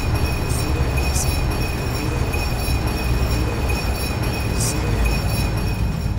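Green glass beer bottle rolling on a concrete floor: a continuous rumbling roll with a steady high ringing from the glass.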